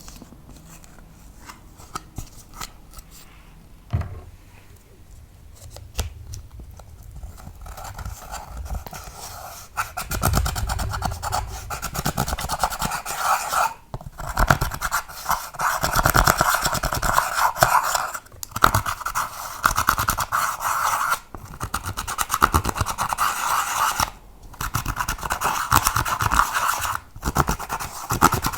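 Hands kneading and squishing slime as eyeshadow is mixed in, making dense sticky crackling and popping. For the first ten seconds or so it is soft, with a few separate clicks. After that it turns loud and continuous, broken by a few short pauses.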